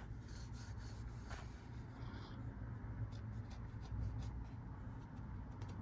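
Faint, irregular scratching and rubbing with light clicks, over a steady low hum.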